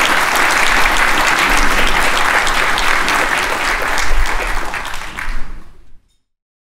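Audience applauding, a dense steady clapping that fades out quickly near the end.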